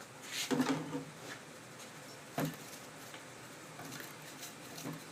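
Light clicks and handling noises from the engine cooling fan being handled for cleaning, with one sharper knock about two and a half seconds in.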